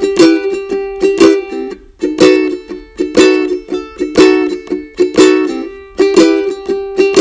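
Intro music of plucked-string chords strummed in a steady beat, each chord ringing and fading, with a brief break about two seconds in.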